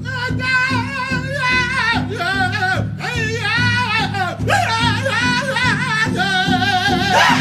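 Music: a voice singing with a wide, wavering vibrato over a steady, pulsing low accompaniment.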